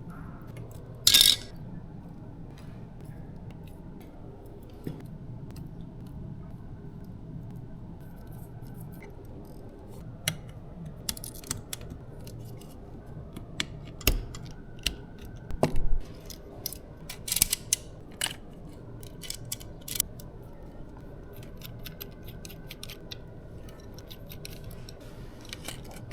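Scattered sharp clicks and snaps of small tools and plastic and metal parts as a DJI Air 2S drone is taken apart, the loudest about a second in and a busy run in the middle, over a low steady hum.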